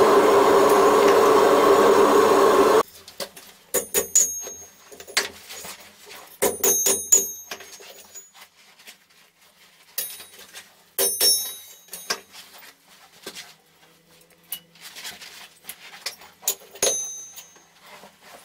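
Homemade forge running with a steady rushing noise that cuts off abruptly about three seconds in, as the forge is shut down. Then steel tongs clank and clink against metal several times, some strikes leaving a short high ring.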